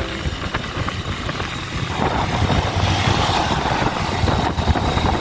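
Waterfall roaring: a steady rush of falling water with a deep rumble, getting brighter and hissier about two seconds in.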